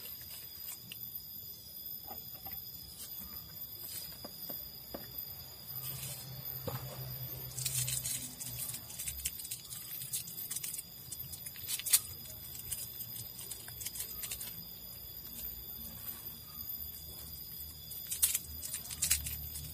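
Faint rustling and scattered small clicks of hands laying fresh melinjo and bay leaves into a pot of water and pressing them down, with one sharper click about twelve seconds in. A faint steady high-pitched tone runs underneath.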